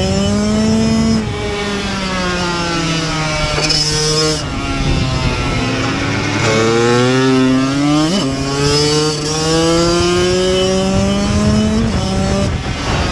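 Kawasaki KX85's 85 cc two-stroke single-cylinder engine at racing speed, heard from on the bike. The engine note climbs steadily as it accelerates and drops sharply about a second in, around four seconds and near the end, with a quick upward blip around eight seconds.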